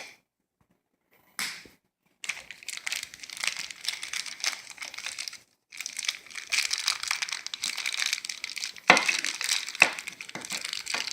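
Packaging crinkling and tearing as it is cut and pulled open by hand to free a silver coin. Long stretches of rustling begin about a second and a half in, with two sharper cracks near the end.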